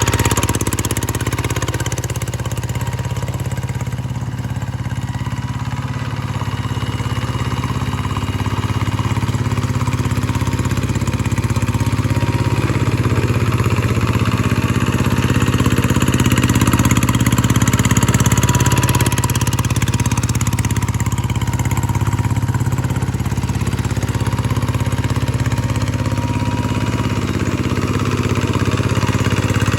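G1000 engine on a hand tractor running steadily, its loudness swelling and easing slightly.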